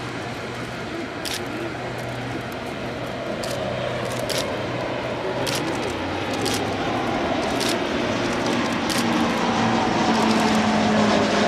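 Fuji T-7 trainers flying, their turboprop engines and propellers making a steady drone that grows louder throughout. Its low hum shifts lower in pitch about halfway through. Scattered sharp clicks sound over it.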